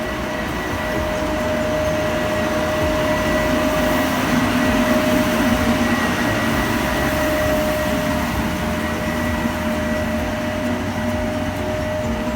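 Heavy road-works machinery running steadily under load, a continuous mechanical drone with a constant high whine, growing somewhat louder in the middle.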